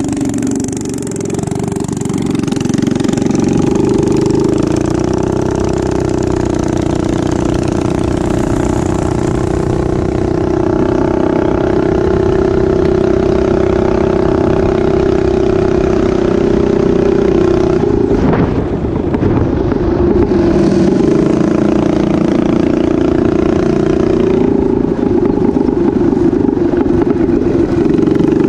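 Minibike engine running steadily under way at a constant throttle. The engine note drops off briefly about a second in and again around eighteen seconds, then picks back up.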